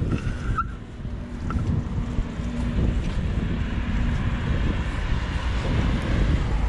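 Wind buffeting the microphone while moving, a steady low rumble, with a faint steady hum through the first few seconds.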